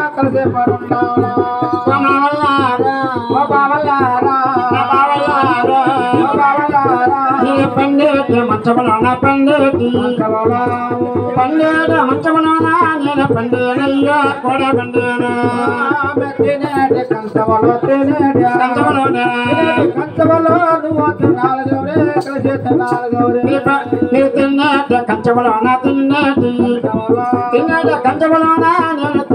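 Live folk music played through a microphone and loudspeaker: a hand drum keeps a quick, steady beat under a gliding, ornamented melody line with singing.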